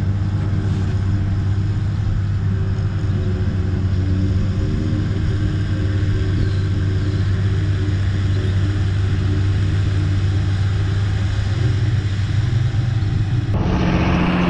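Pickup truck engine idling steadily, a low even hum. Shortly before the end it cuts to a different, higher-pitched engine note.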